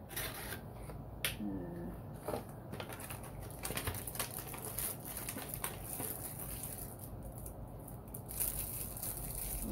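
Scattered light clicks, taps and rustles of a plastic packaging tray and cardboard box being handled.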